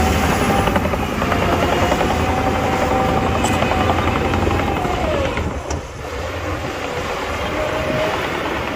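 Heavy diesel earthmoving machinery running, a steady engine clatter with a thin whine over it that drops in pitch about five and a half seconds in.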